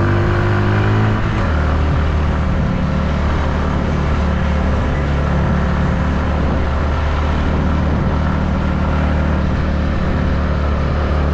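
Small motorcycle engine running under way, heard from the rider's seat. Its note rises, drops about a second in, then holds steady.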